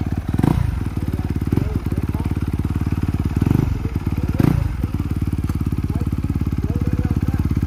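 Four-stroke dirt bike engine running at a high idle with an even beat, revved briefly a few times in the first half.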